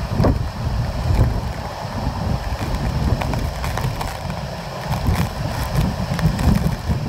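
Hurricane-force wind buffeting the microphone: a loud, gusty low rumble that swells and eases, with scattered sharp clicks and rattles.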